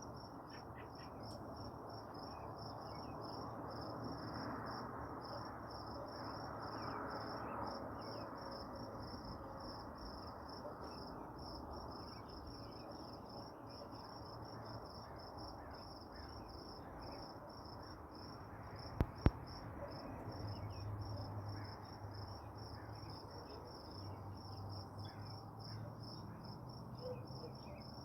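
Insects trilling steadily outdoors: a continuous, rapidly pulsing high chirr that does not let up, over faint background noise. Two sharp clicks come about two-thirds of the way through.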